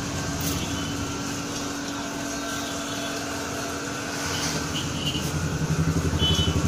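Automatic paper plate and dona making machine running: a steady mechanical hum with a constant tone. Over the last two seconds a fast, even pulsing from its drive grows louder.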